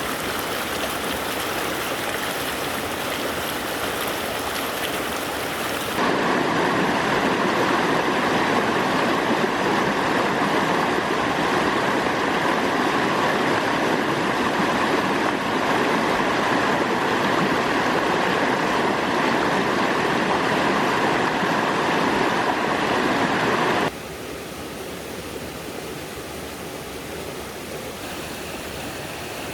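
Running stream water, a steady rushing with no distinct splashes. It turns suddenly louder and fuller about six seconds in, then drops abruptly to a quieter rush about three-quarters of the way through.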